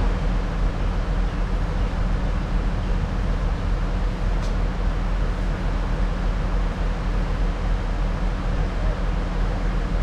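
Diesel railcar's engine idling with a steady low rumble while the railcar stands at the platform.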